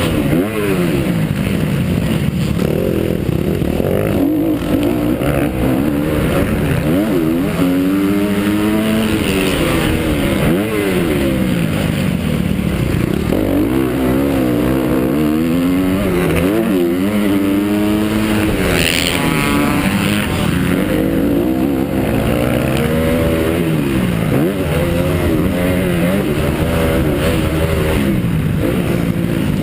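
Honda CRF 250 four-stroke motocross bike's single-cylinder engine heard on board under race load, revving up and dropping back over and over as the rider accelerates, shifts and backs off. A brief higher-pitched rise about two-thirds of the way through.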